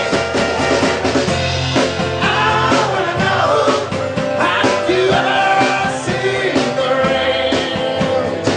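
Live rock band playing: a man singing lead vocals over two strummed acoustic guitars and a drum kit keeping a steady beat.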